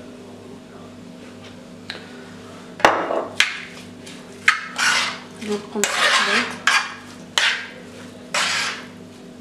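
A utensil stirring and scraping sliced onions with oil and spices in a frying pan: a sharp knock against the pan about three seconds in, then a run of scraping strokes.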